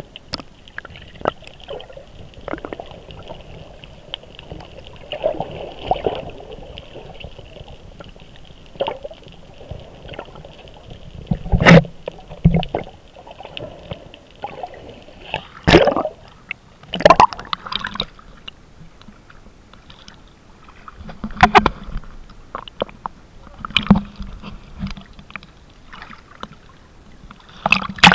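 Water sloshing and gurgling around a camera held at the surface and just below it, with irregular splashes and knocks. The loudest come about twelve, sixteen and seventeen seconds in.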